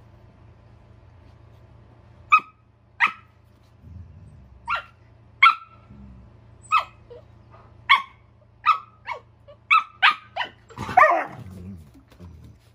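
Dog play-barking in short, sharp barks, about a dozen of them, coming faster in the second half. Near the end one longer bark falls in pitch into a growl.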